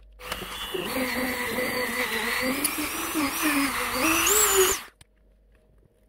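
Handheld rotary tool with an abrasive drum grinding a small metal bracket held in a vise, its pitch wavering up and down as the drum bears on the metal. It starts just after the beginning and cuts off abruptly about a second before the end.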